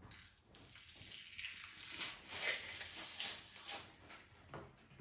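Gloved hands tearing the silver skin off a raw beef rib: a faint, uneven peeling and rustling that builds about half a second in, is strongest in the middle, and dies away near the end.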